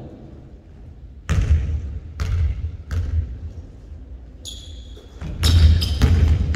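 Basketball bouncing on a hardwood gym floor: a few single bounces in the first half, then near the end sneaker squeaks and a quicker run of bounces as one-on-one play starts, with the hall's echo behind them.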